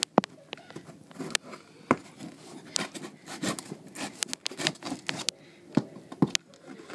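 A cardboard shipping box being cut open with a knife and handled: irregular sharp clicks, short scrapes and rustles.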